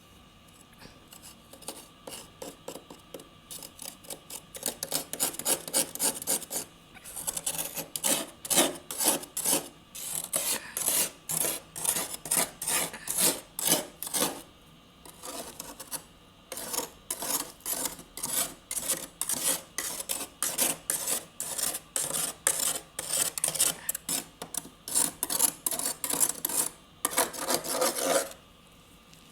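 Fluffy built-up freezer frost being scraped in quick repeated rasping strokes, about two a second. The strokes start faint and grow stronger, break off briefly about halfway, and end in one longer continuous scrape.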